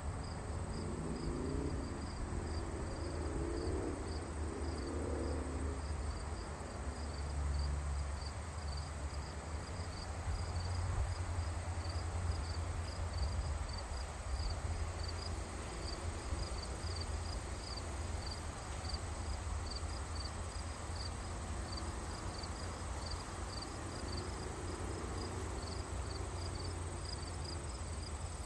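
An insect chirping steadily, short high chirps repeated evenly a little under twice a second, over a low outdoor rumble.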